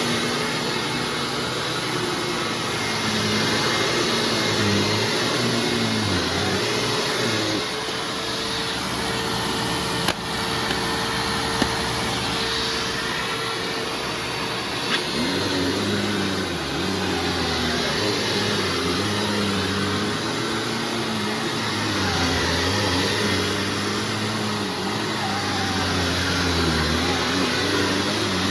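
Hoover Self Propelled WindTunnel Ultra U6430 upright vacuum running with its newly fitted brush roll, a steady motor noise whose lower pitches shift up and down throughout, with a couple of brief clicks about ten seconds in.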